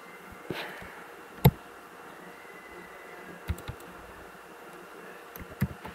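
A few scattered computer keyboard keystrokes over faint steady hiss, the loudest about a second and a half in.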